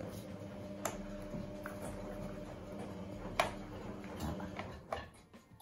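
A few faint clicks and light rustling from hands sorting fennel sprigs in a plastic bowl and laying them into a plastic box, over a steady low hum.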